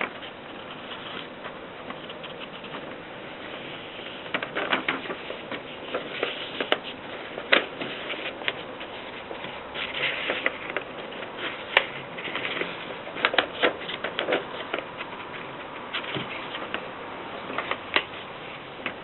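Keys of a Mercedes Superba typewriter being struck, giving uneven runs of sharp clicks with short pauses between them.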